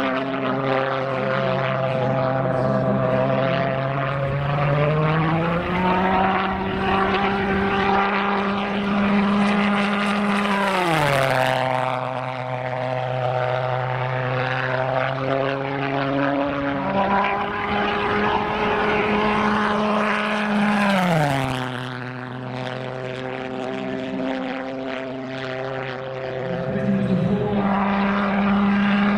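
Pulse jet engine of a radio-controlled delta-wing model running flat out through low-level passes, a strong pitched drone. Its pitch climbs as the model approaches and drops sharply as it passes, about 11 and 21 seconds in, then climbs again near the end.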